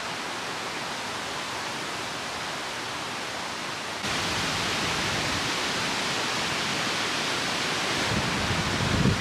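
Strong wind rushing steadily. It jumps abruptly louder about four seconds in, and low gusts buffet the microphone near the end.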